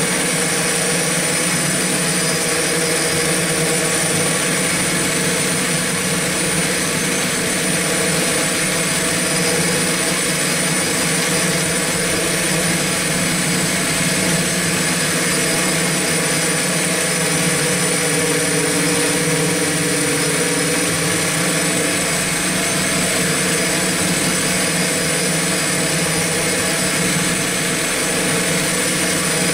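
Electric motors and propellers of an X8 multirotor running in steady flight: a dense, even drone with several held tones and a high whine, picked up close by the camera carried on the craft.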